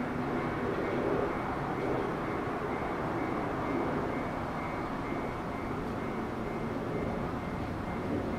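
Hanshin 7861-series electric train approaching along a single track, a steady running sound of wheels and motors.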